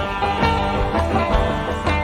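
Live ensemble music in an instrumental passage, with repeated pitched note attacks over a pulsing low beat.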